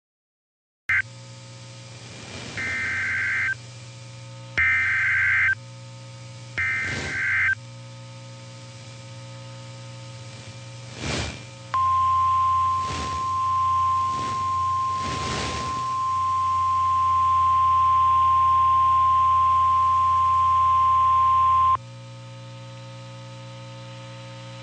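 Emergency Alert System tones on NOAA Weather Radio. Three warbling bursts of the SAME digital header come about a second each, then the single steady warning alarm tone holds for about ten seconds and cuts off. The sequence signals the start of a new tornado warning. A low receiver hum and a few bursts of static lie underneath.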